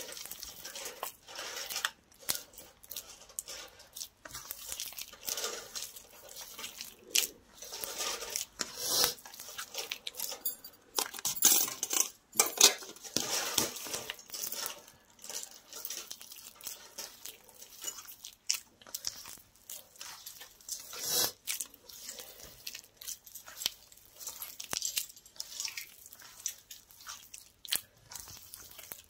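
Hands squeezing and kneading a wet dough of soaked bread, egg and milk in a stainless steel bowl: irregular squelching and squishing, with now and then a knock against the steel bowl, loudest around the middle.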